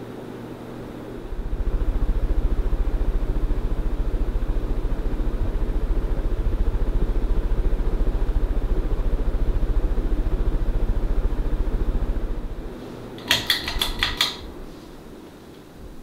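Encon Imperial ceiling fan's motor running with a steady low hum. About a second in, the hum grows much louder and takes on a fast, even buzzing pulse, heard close to the motor housing. It falls back near the end, followed by a quick run of about five sharp clicks.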